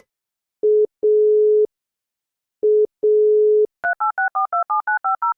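Italian landline dial tone: one steady tone in a short beep-then-longer-tone pattern, heard twice. Then, just under four seconds in, a quick run of about ten DTMF keypad tones as a number is dialled.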